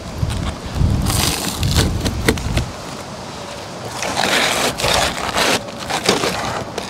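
Utility knife cutting through an asphalt roofing shingle: rough scraping strokes, strongest about four to five seconds in, with a few sharp ticks. A low rumble of handling runs under the first two seconds or so.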